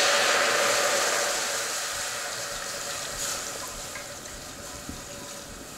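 Hennessy cognac sizzling in a hot pot just after being poured in. The hiss fades steadily as the pot cools under the liquid.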